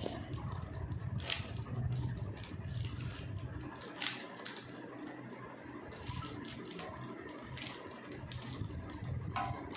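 Rubik's cube being scrambled by hand: irregular plastic clicks and clacks as its faces are twisted, some louder than others.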